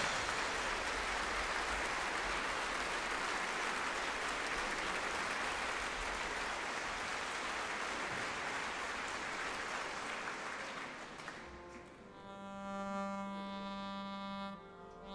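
Audience applauding, fading out after about eleven seconds. Then a bayan, a Russian button accordion, begins playing slow held chords.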